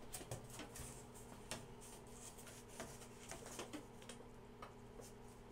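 Faint, scattered light knocks and clicks as a large plywood sheet is lifted and lowered onto a glued joint, over a faint steady hum.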